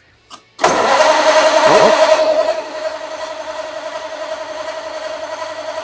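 Flathead V8 in a Model A hot rod catching and starting right after a brief click, revving up briefly, then settling to a steady idle after about two seconds, its first run in a few months.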